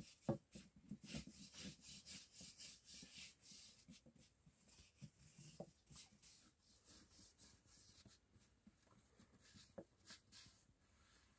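Faint swishing and rubbing of a long thin wooden rolling pin worked back and forth over floured flatbread dough, in quick uneven strokes with a few light knocks.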